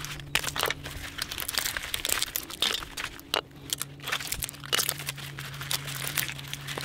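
Crinkling and sharp clicking as gloved hands twist apart salvaged 18650 lithium-ion cells, snapping the nickel connecting strips and crackling the plastic wrap.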